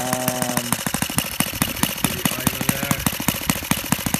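Laser 100 single-cylinder four-stroke model aircraft engine, converted to petrol spark ignition, idling just after starting at about 1,600–1,800 rpm with a 14x8 propeller: an even, rapid popping of about thirteen firing strokes a second.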